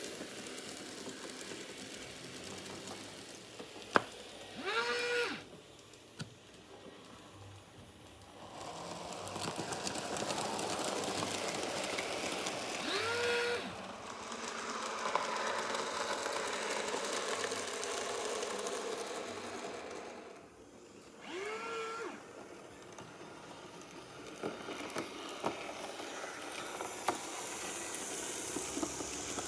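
Märklin miniclub Z-gauge model trains running on the layout: a steady, rattling whir of tiny motors and wheels on the track, rising and falling as trains pass. A sharp click comes about four seconds in, and three short whistle calls, each under a second, come roughly eight seconds apart.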